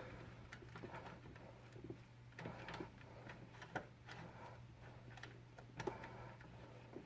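Faint scattered clicks and small ticks of metal parts being handled as a brake line fitting is threaded into the caliper by hand, over a steady low hum.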